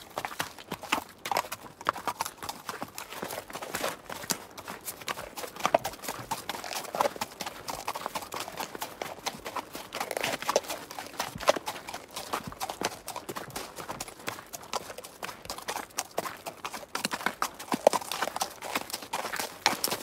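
Horse's hooves clip-clopping at a trot: a steady, dense run of sharp hoof strikes.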